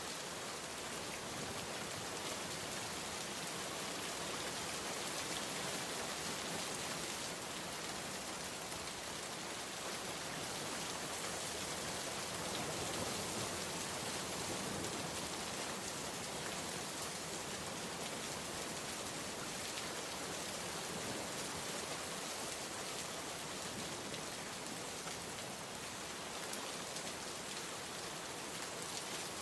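Steady rain falling on a surface, an even hiss of many drops with no thunder or distinct single drips.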